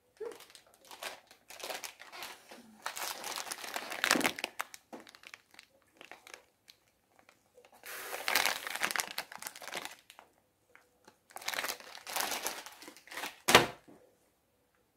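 Plastic Sour Patch Kids candy bag crinkling as it is handled, in several bouts, loudest while it is held close to the microphone. A short sharp knock near the end.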